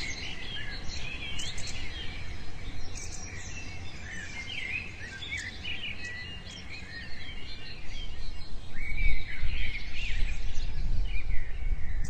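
Small birds chirping and calling over one another in quick, varied twitters, over a steady low background rumble.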